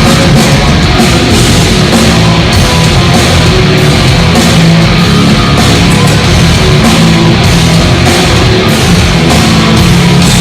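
Hard rock/heavy metal band playing loudly through a hall PA: distorted electric guitars, bass and a pounding drum kit.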